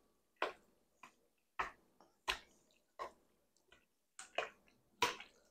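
Spoon knocking against the side of a glass mixing bowl while stirring cooked egg noodles through a thick creamy sauce: about eight soft, separate knocks, roughly one every two-thirds of a second.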